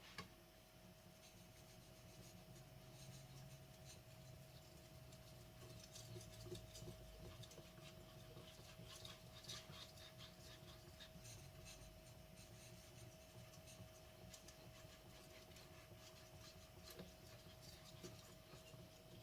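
Faint scraping of a carbon steel knife blade being stroked back and forth over a wet whetstone, in irregular strokes, over a steady faint hum.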